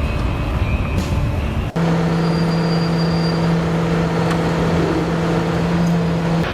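Heavy vehicle engine sound: rough low rumbling, then, after a sudden cut about two seconds in, an engine running steadily at a constant pitch.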